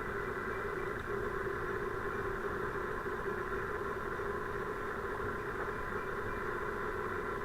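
A steady, unchanging hum and hiss with no distinct events.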